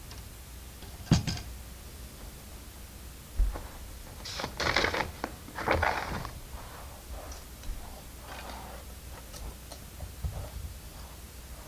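Plastic LEGO pieces being handled: a sharp click about a second in, a low knock, then a couple of seconds of rustling and rattling plastic, followed by scattered small clicks.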